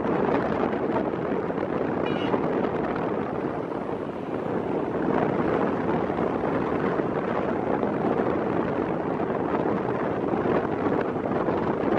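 Steady wind and rough sea noise with a diesel locomotive running as it hauls a passenger train across the sea bridge.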